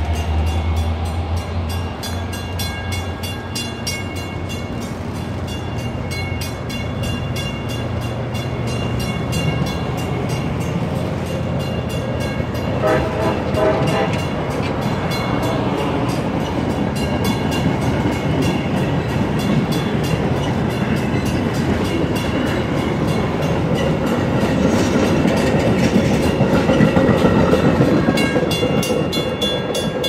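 Metra bilevel passenger cars rolling past at close range, with a steady rumble of wheels on rail and some clickety-clack, growing louder toward the end as the last cars go by. A brief pitched tone sounds about thirteen seconds in.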